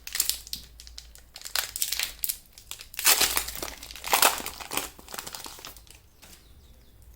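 Plastic-foil Pokémon trading card booster pack wrapper crinkling and being torn open by hand, in irregular bursts of rustling, the loudest about three and four seconds in.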